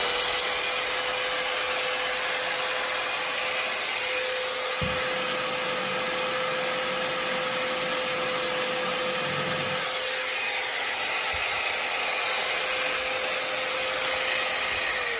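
Second-hand Dongcheng 220 V corded power tool running free at full speed: a steady motor whine with a hiss over it that holds its pitch, then falls away right at the end as it is switched off. It runs very smoothly. There is a single low knock about five seconds in.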